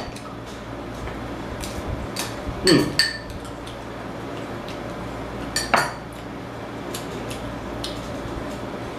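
A spoon clinking and scraping against a glass bowl of rice as it is stirred and scooped: scattered small clicks, with two louder short sounds about three and six seconds in.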